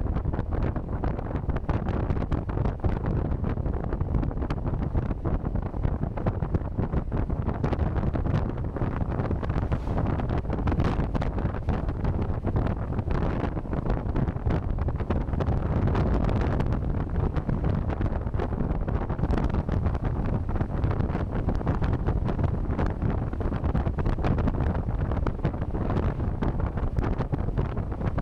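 Wind buffeting the microphone on a moving electric motorcycle: a steady low rumble of wind noise, with no engine note.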